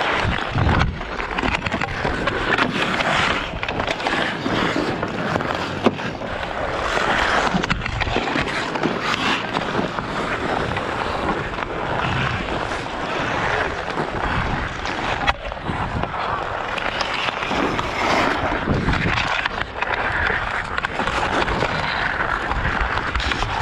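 Ice skate blades scraping and carving across outdoor rink ice, a steady rushing hiss that rises and falls, with a few sharp clicks.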